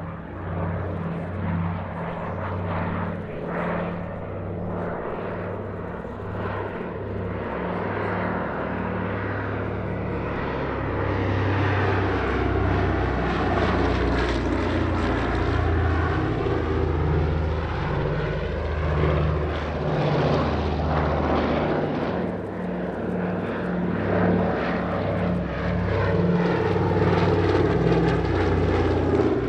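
A PBY-5A Catalina flying boat's two Pratt & Whitney R-1830 Twin Wasp radial engines and propellers droning steadily in a flypast. The sound grows louder about ten seconds in as the aircraft comes close, then stays strong.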